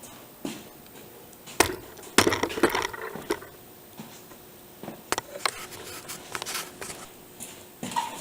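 Rough oak boards being handled on a workbench: a sharp wooden knock about a second and a half in, a burst of clattering knocks just after, then scattered lighter knocks and rattles.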